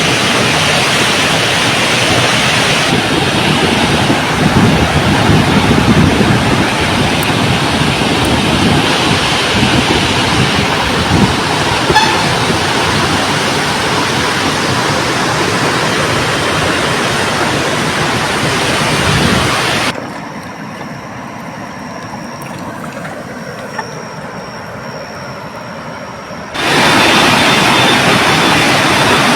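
Steady roar of rushing floodwater. It drops to a quieter rush for several seconds near the end, then comes back loud.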